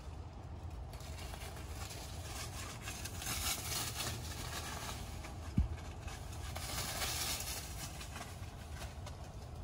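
Outdoor background noise: a steady low rumble with swells of rustling hiss, and one sharp knock about five and a half seconds in.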